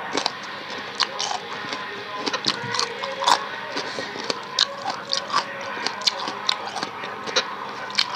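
Close-miked eating sounds: wet chewing and mouth noises with many sharp, irregular clicks.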